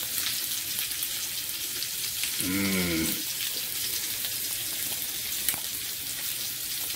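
Steady bubbling hiss with faint crackles from a stockpot of pasta water at a rolling boil. A short hummed vocal sound with a falling pitch comes about two and a half seconds in.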